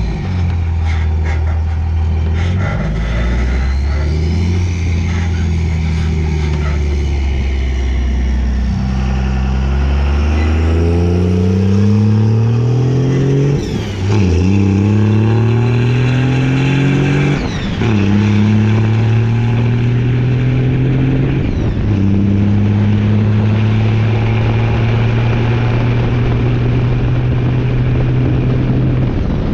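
Second-generation Dodge Ram's Cummins 5.9-litre inline-six turbodiesel pulling a gooseneck trailer and accelerating up through the gears: the engine note climbs, then drops sharply at each upshift, about five times, before settling into a steady cruise. Road and wind noise run underneath.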